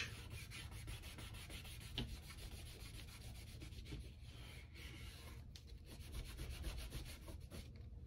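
A folded cloth and fingernail rubbing along the edge of an iPad's aluminium frame, scrubbing isopropyl alcohol over old screen-adhesive residue to clean the mating surface; a faint, steady rubbing.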